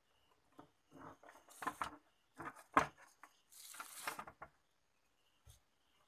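Handling noises as the plastic back cover of an opened LED TV is set back over the set: a run of knocks and clicks, a scraping rustle about three and a half seconds in, and one soft knock near the end.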